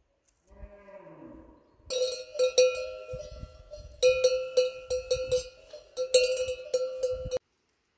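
A cowbell hanging from a grazing cow's neck clanking in quick, irregular strokes, each ringing on, starting about two seconds in and cutting off suddenly near the end.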